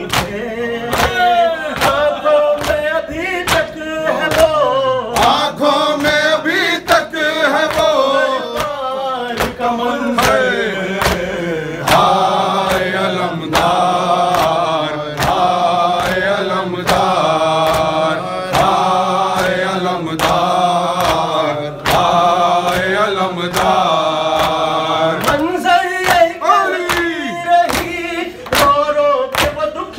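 Male voices chanting a noha, a Shia lament sung in Urdu, in a group. Regular sharp strikes, about two a second, keep time under the singing.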